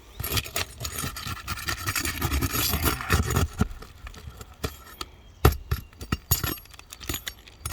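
Asphalt roof shingles being pried loose and pulled up, with irregular scraping and rubbing and sharp clicks; one loud knock about five and a half seconds in.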